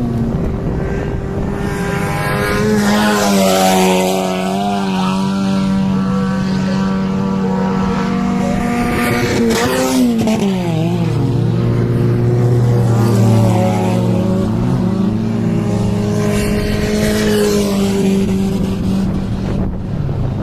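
Several banger-racing cars' engines running hard around the track, several engine notes at once, their pitch rising and falling as the cars accelerate and ease off.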